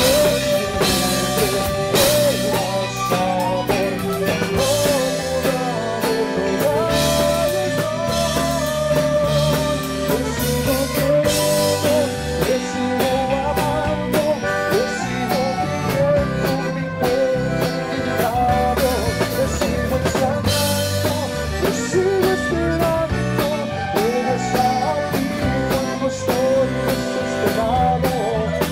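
Tejano band playing, with an accordion carrying a wavering melody over a drum kit and bass.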